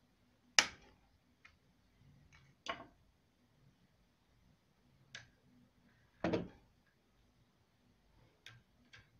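Scattered small clicks and knocks, about eight in all, of a small blade and slack steel strings against the wooden nut and headstock as an old unglued nut is worked loose. The sharpest click comes about half a second in, and a duller knock about six seconds in.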